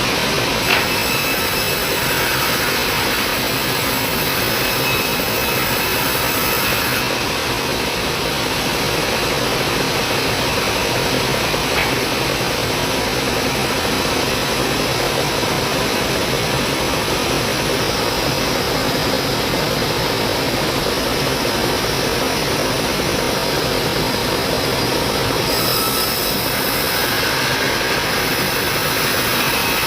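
Sawmill band saw running steadily and cutting through leftover wood slabs, with a sharper high hiss in the first seven seconds and again near the end.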